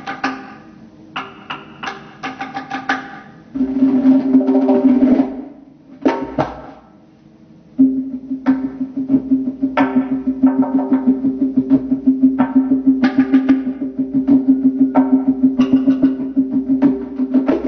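Solo tombak (Persian goblet drum) played with the hands: a few sharp separate strokes, then a loud fast roll that dies away about five seconds in. After a short lull, a sustained roll starts about eight seconds in, holding a steady drum tone under accented strokes that pulse about four times a second.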